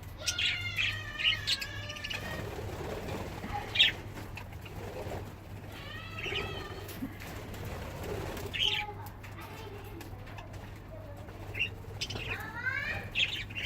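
Budgerigars chirping and warbling in short bouts a few seconds apart, over a steady low hum.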